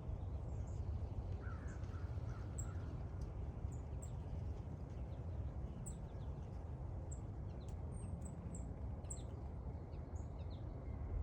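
Small birds chirping outdoors: short, high chirps scattered about once a second, with one lower call about two seconds in. They sit over a steady low background rumble.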